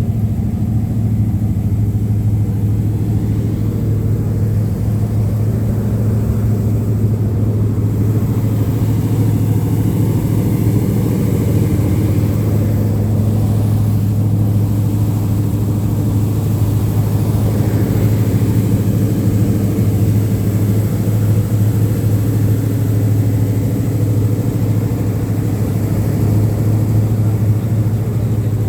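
A car's engine and road rumble: a steady low drone that holds one pitch throughout, with no rise or fall.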